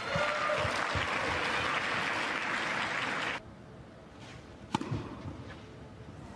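Crowd applauding in an indoor arena, cut off suddenly about halfway through; about a second later a single sharp tennis racket strike on the ball as a serve is hit.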